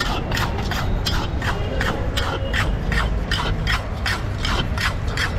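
Flat metal spatula scraping popcorn kernels and hot salt around a large iron kadhai in quick, even strokes, about three a second, over a steady low rumble.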